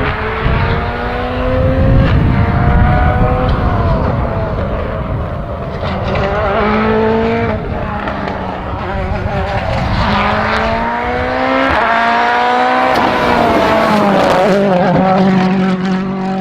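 Turbocharged four-cylinder WRC rally car engine accelerating hard: the revs climb and drop sharply again and again as it shifts up through the gears, then the pitch falls away near the end.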